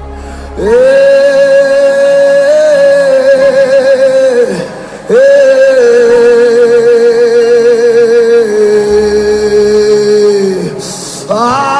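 Worship singing: a voice holds two long notes with a wavering vibrato, each several seconds long, over soft sustained music, and a third note starts near the end.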